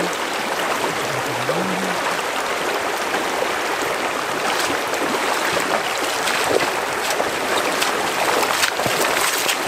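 Fast, shallow river current running steadily over rocks, with occasional splashes of wading boots moving through the water.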